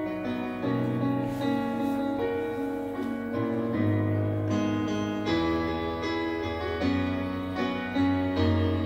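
Electric bass played fingerstyle, holding low notes that change about once a second, under a piano part playing sustained chords in a slow ballad.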